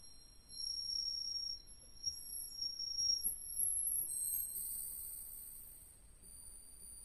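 Yamaha MODX+ synthesizer playing an ambient patch: very high, thin sustained tones layered together, with chirping, warbling glides in pitch a couple of seconds in. More high notes join about four seconds in, then the sound fades toward the end.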